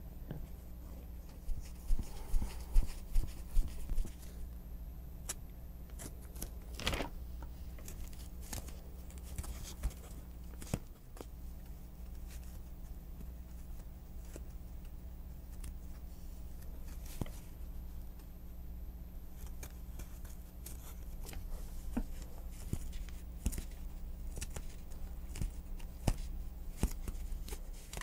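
Hands handling and pressing foam rubber pieces on a newspaper-covered work table: scattered rustles and light clicks, with a quick run of sharp taps about two seconds in, over a steady low hum.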